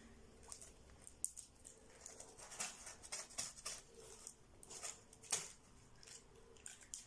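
Faint, irregular rustling of a garment's fabric and its cardboard tag being handled close to the microphone, with a couple of sharper clicks.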